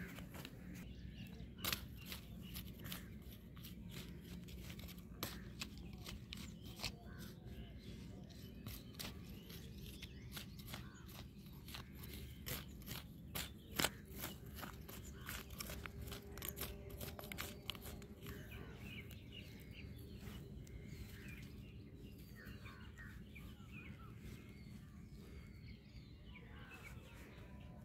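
Hand weeding in dry, clumpy soil: a run of sharp scrapes and crackles as earth is scratched loose and weeds are pulled, with two louder snaps about 2 and 14 seconds in. Birds chirp in the background, more clearly in the second half.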